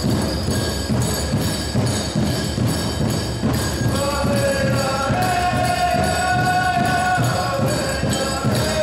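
Powwow drum song: a steady drum beat, about three strokes a second, with bells jingling along, and voices singing long held notes from about four seconds in.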